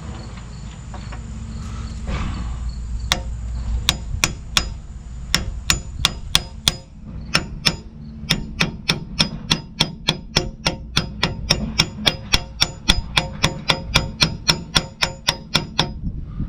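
Hammer striking metal in a quick, even series of about forty blows, roughly three a second, beginning about three seconds in and stopping abruptly near the end, over a steady low hum.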